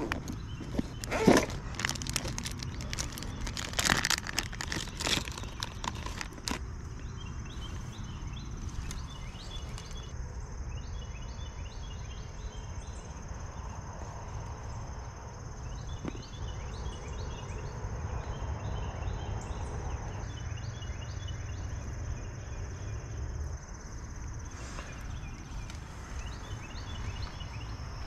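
Rustling and clattering handling noises for the first six seconds or so. Then an outdoor ambience: a steady high insect drone with runs of short repeated chirps over a low rumble.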